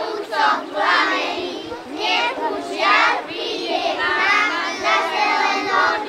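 A group of young children singing a traditional Slovak folk song together in high voices, in short rhythmic phrases.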